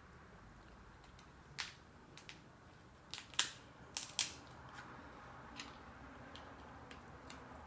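Dungeness crab shell being cracked and snapped apart: a scatter of sharp cracks, the loudest bunched about three to four seconds in, with lighter ticks after.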